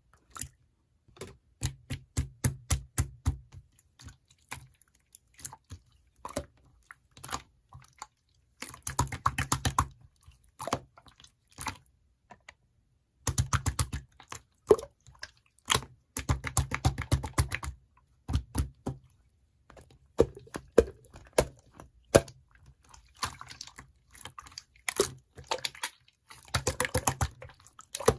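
Irregular runs of sharp clicks and taps, coming in dense bursts of a second or two with short pauses between them.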